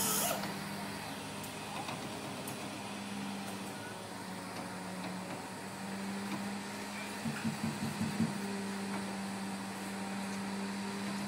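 Steady engine and hydraulic drone of a mobile boat hoist (travel lift) driving slowly with a houseboat slung beneath it, one constant low tone. About seven seconds in, a few short pulses rise briefly above it.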